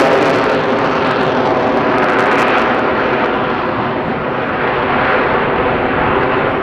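AV-8B Harrier II's Rolls-Royce Pegasus turbofan jet engine, a loud, steady jet roar with slow swells. The high hiss on top thins out about three seconds in.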